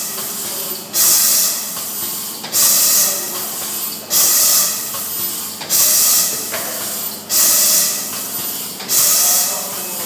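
Triangle nylon tea bag packing machine running, giving a loud, sharp hiss about every one and a half seconds, six times, each lasting under a second, over a steady hum.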